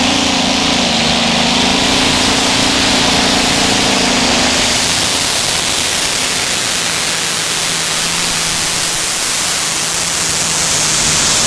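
Twin-engine modified pulling tractor running flat out as it drags the brake sled down the track, a loud dense engine noise. The engine note drops lower about halfway through.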